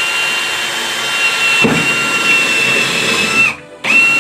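Handheld electric drill running at a steady high whine for about three and a half seconds, a rougher, lower noise joining about halfway, then stopping and running again briefly near the end.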